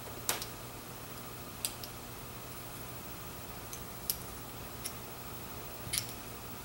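Light metallic clicks and taps, about seven scattered over several seconds, as a small metal tool picks at a chainsaw carburetor's cover plate and the carburetor body is turned in the hands.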